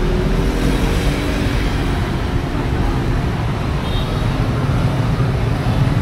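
Steady road traffic noise: a continuous low rumble of passing cars with an even hiss.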